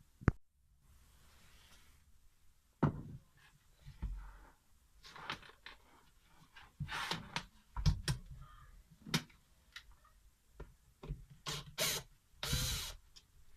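Workshop handling sounds: scattered clicks and knocks and a few short scraping rubs as hand tools and the plastic casing of an old Black & Decker electric planer are handled during disassembly.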